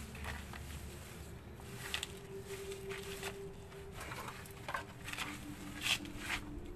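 A black plastic garbage bag and debris being handled, giving a few short rustles and crackles over a faint steady hum.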